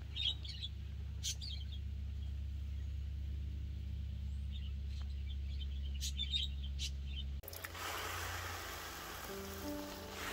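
Small birds chirping now and then over a low steady rumble. About seven seconds in, the sound cuts abruptly to the even hiss of water spraying over leafy greens, and soft music notes begin near the end.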